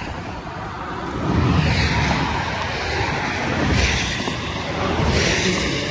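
Traffic passing on a wet highway: several vehicles going by one after another, their tyres hissing through the spray on the road.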